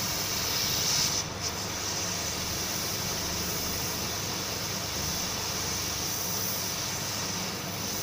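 Steady rushing hiss of a hot-air rework station's blower.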